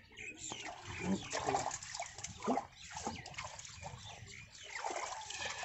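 Muddy water sloshing, splashing and trickling as hands dig around a tractor's rear tyre stuck in mud. Low voices come in between.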